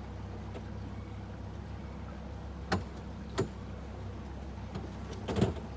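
A motorboat's engine running steadily at low speed, a low even hum. Sharp knocks cut through it: one about three seconds in, another half a second later, and a quick cluster near the end.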